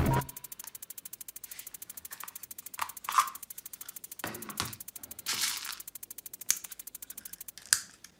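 A fast, even ticking, about ten a second, with a few louder sharp clicks and clacks scattered through it. These are typical of a toy bead gun being handled and worked.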